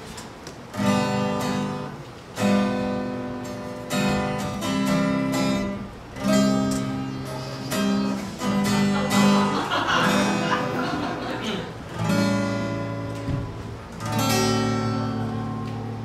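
Acoustic guitar strumming chords, one strum every second or two, each chord left to ring out.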